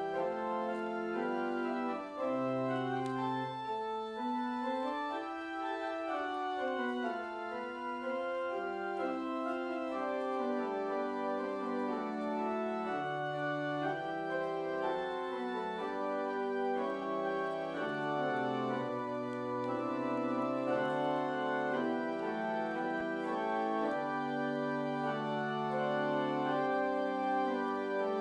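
Church organ playing slow, sustained chords, with low pedal notes coming in and out underneath.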